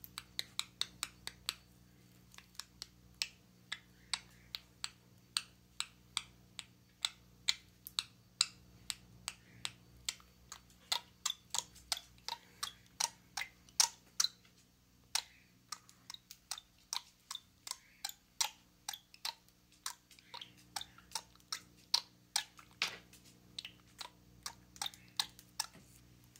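A budgerigar making a long series of sharp, irregular clicks, a few a second, over a faint steady hum.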